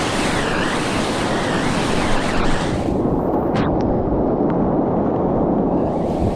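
Rushing and splashing of a Class IV whitewater rapid around a kayak, heard close up from on the boat. About three seconds in the sound turns duller as the high hiss drops away, with a few brief sharp splash ticks.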